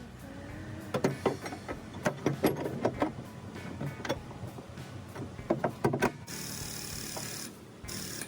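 Irregular sharp metal knocks with short ringing, from body work on the car's sheet metal, followed about six seconds in by a steady hiss lasting over a second.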